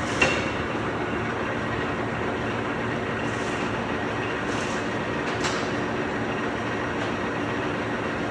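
Bullard vertical turret lathe running steadily, with a sharp metallic click about a quarter second in and a fainter one about five and a half seconds in.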